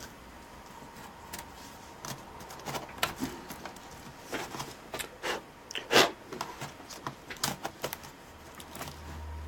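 Scattered small clicks and taps of plastic laptop parts being handled and pressed into place during reassembly, the loudest about six seconds in.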